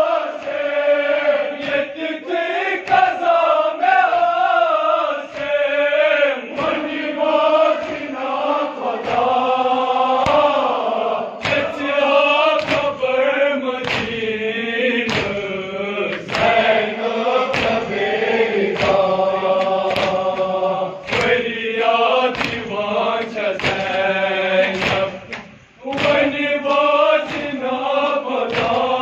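A group of men chanting a Kashmiri nawah (Muharram lament) in unison, with sharp hand-on-chest matam beats keeping time about once a second. There is a brief break near the end.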